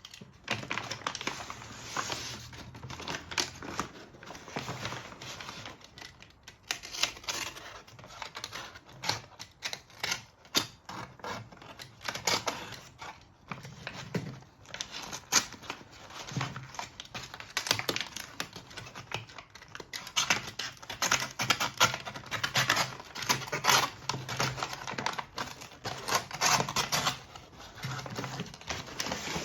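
Hands handling a mechanical keyboard and its packaging: rapid, irregular clicking and rustling with no steady rhythm.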